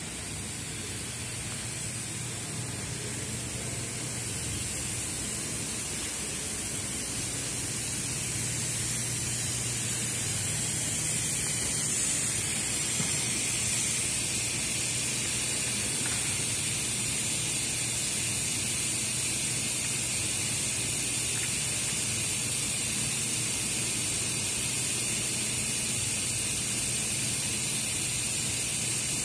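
Steady hiss of rushing air with a faint low hum underneath, growing a little louder over the first dozen seconds and then holding even.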